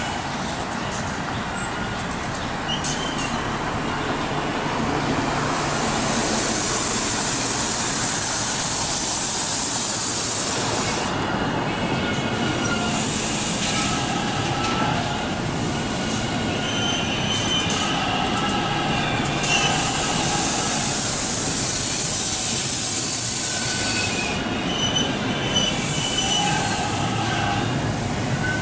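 TTC subway train rolling slowly through a curve with a steady rumble and scattered clacks over the rail joints, its wheels squealing high-pitched twice for about five seconds each: flange squeal from taking the curve.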